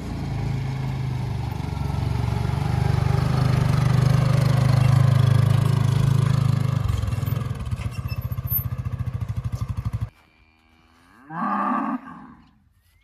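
A vehicle engine running steadily, settling into a rapid even pulsing before it cuts off abruptly. After a short quiet gap, a cow gives one brief moo near the end.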